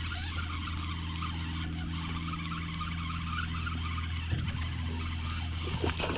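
Steady low hum of a small boat motor, with a spinning reel cranking as a topwater frog is retrieved. Near the end a fish strikes the frog with a splash.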